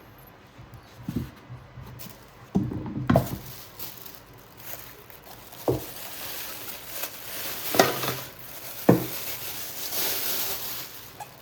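Stainless steel mixing bowls being handled while unpacked: half a dozen sharp knocks and clinks, scattered across the stretch, among rustling of packaging.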